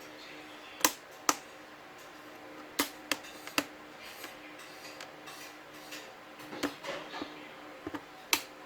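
Sharp clicks and taps of hard plastic and small tools being handled while a laptop's case is taken apart, about ten scattered knocks, the loudest two near the start and one near the end.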